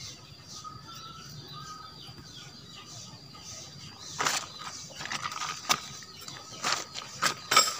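Nylon tent fabric rustling with short clicks and knocks as a dome tent's fly is handled and pegged out, coming in short bouts from about four seconds in, the loudest near the end. Faint bird chirps before that.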